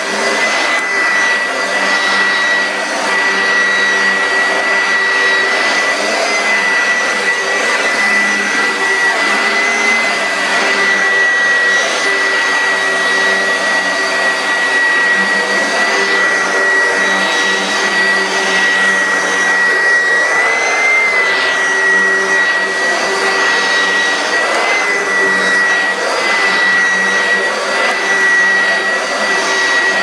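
Oreck XL Hotel upright vacuum cleaner running loudly on carpet: a steady rush of air with a strong high whine whose pitch wavers slightly now and then.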